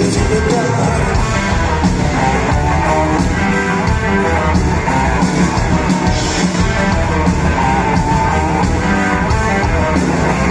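Live rock band playing: electric guitar prominent over bass guitar, drum kit and keyboards, heard from the audience.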